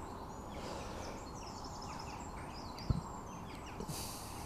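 Faint birdsong from several birds chirping and warbling over a steady outdoor background, with one soft low thump about three seconds in and a brief hiss near the end.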